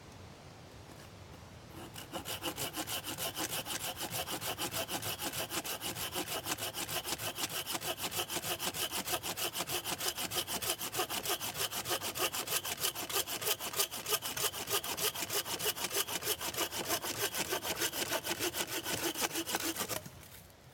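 Hand saw cutting through firewood with quick, even back-and-forth strokes, starting about two seconds in and stopping just before the end.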